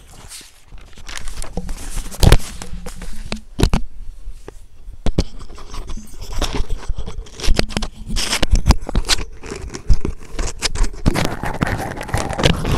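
Metal spoon scraping and clinking against an aluminium kadhai while stirring thick frying masala paste, in an irregular run of scrapes and knocks.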